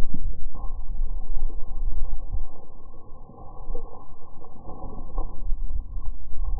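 Strong wind buffeting the microphone: a loud, muffled rumble that rises and falls in gusts, dipping briefly about three seconds in.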